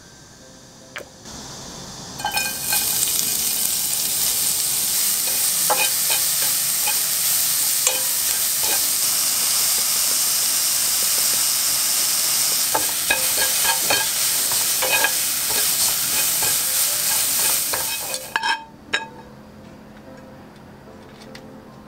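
Julienned carrots stir-frying in hot oil in a nonstick pan over medium heat: a steady loud sizzle with frequent light knocks and scrapes as they are stirred. It starts about two seconds in and cuts off suddenly about eighteen seconds in, leaving only a few faint clinks.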